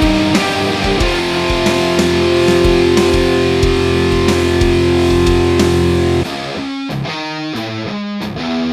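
Distorted electric guitar played through a Mesa Boogie Dual Rectifier tube amp head and cabinet, playing a heavy riff. A chord rings out for about five seconds, then about six seconds in the playing turns to short, choppy notes at a lower level.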